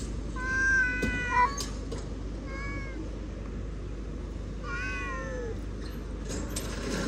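Cats meowing three times: a long meow starting about half a second in, a short one between two and three seconds in, and another about five seconds in that falls in pitch.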